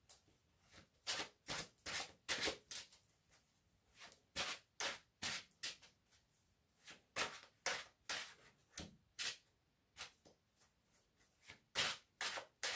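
A deck of tarot cards being shuffled by hand: a series of short, sharp swishes and slaps of cards against each other, coming in irregular clusters with brief pauses between them.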